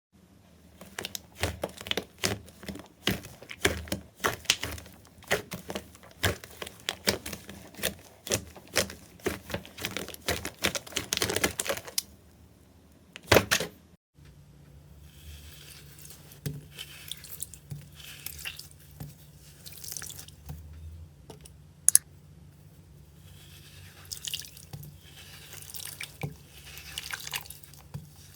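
Slime being squeezed and poked, making rapid, irregular wet clicks and pops for about the first twelve seconds. After a short break, softer and wetter squishing follows over a faint low hum, with one sharp pop midway.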